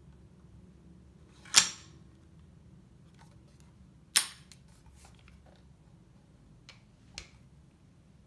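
Sharp metal clacks from a Golden Eagle M16A2 gas blowback airsoft rifle being handled: two loud ones about two and a half seconds apart, then two lighter clicks near the end.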